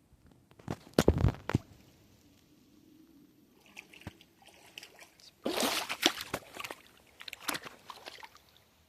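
Water splashing and sloshing in short bursts, with sharp knocks about a second in and a longer run of splashing past the middle.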